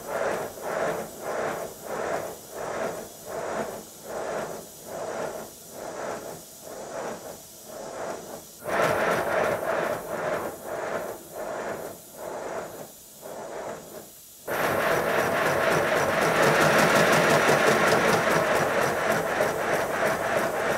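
'Speedy' model steam locomotive running on bench rollers, its exhaust beating evenly at about two beats a second. About 14 seconds in it jumps abruptly to a much louder, faster run, the beats coming close together in a rapid hissing chatter.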